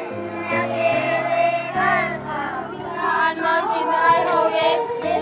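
A hymn sung by women's and children's voices over sustained keyboard chords that change every second or so.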